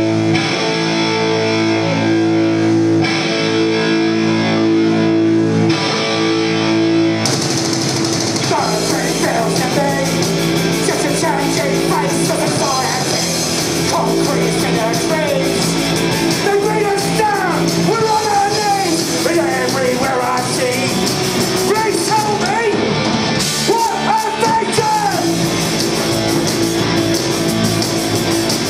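Live punk rock band: distorted electric guitars hold ringing chords, then drums and bass crash in about seven seconds in and the band plays on with a sung lead vocal over it.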